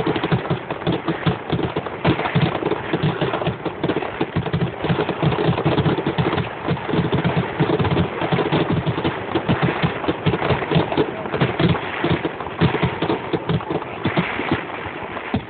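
Fireworks finale barrage: a dense, unbroken run of shell bursts and crackling, many reports every second.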